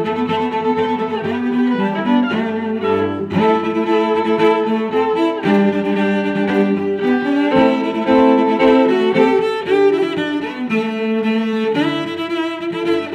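Background music: string instruments playing slow, sustained melodic notes.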